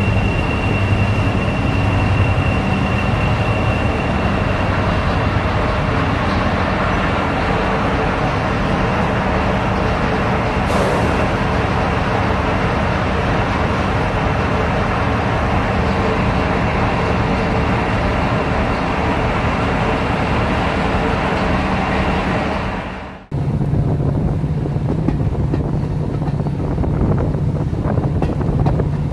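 Class 55 Deltic locomotive D9009 running on its two Napier Deltic diesel engines as it moves slowly along the platform, with a thin high whine for the first few seconds. After a sudden cut near the end, a diesel engine runs with a steadier, lower hum.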